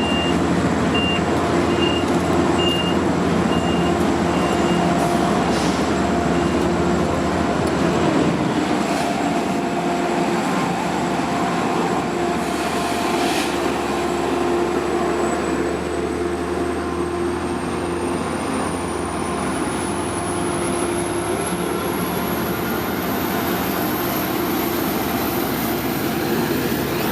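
Long Island Rail Road DM30AC diesel locomotive engine running steadily at a station stop. A run of short high beeps sounds in the first few seconds. From about halfway in, a thin high whine rises steadily in pitch.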